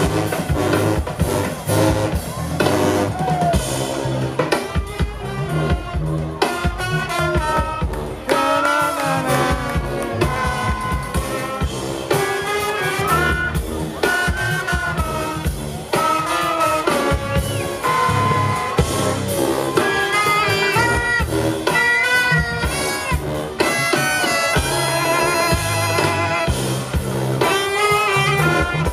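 Live jazz brass band playing in a New Orleans second-line style: saxophones and trombones carry the melody over sousaphone bass and drums.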